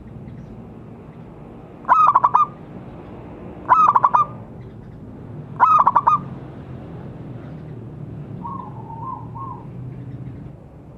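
Zebra dove (perkutut) calling: three loud, stuttering cooing phrases about two seconds apart, each around half a second long, then a softer three-note coo a few seconds later.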